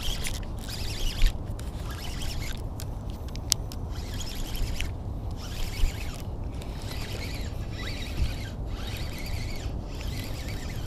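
Irregular rustling and scraping close to the microphone, with a few sharp clicks, over a low steady rumble: an angler handling his rod, reel and gear.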